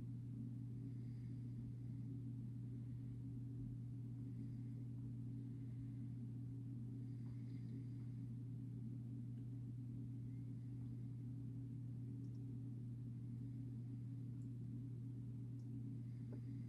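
Mr. Coffee drip coffee maker brewing, giving a steady low electrical hum with faint soft gurgles every second or two.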